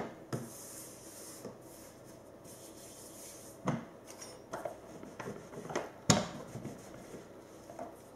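Fondant icing and a rolling pin being worked on a wooden worktop: quiet rubbing and handling with a few light knocks, the sharpest about six seconds in.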